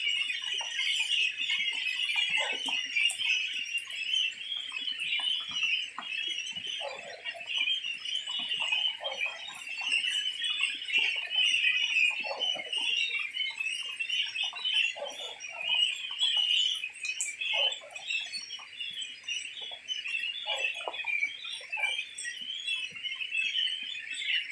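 A large flock of young goslings peeping all together in a dense, continuous chorus of high calls, with short lower calls breaking through every second or so.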